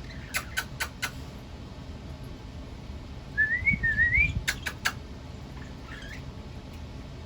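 A pet talking bird whistling a short wavy phrase of two rising notes, the same whistle it gave just before. Sharp clicks come in quick runs: four in the first second and three right after the whistle.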